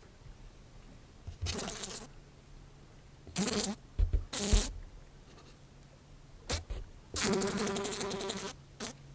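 A fly buzzing in short stop-start bursts, each a fraction of a second long, with one longer buzz of about a second and a half near the end. A couple of low bumps come with the buzzing about four seconds in.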